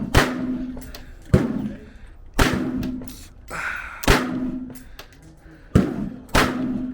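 Six gunshots fired at uneven intervals, roughly one a second, each with a sharp crack and a short ringing tail.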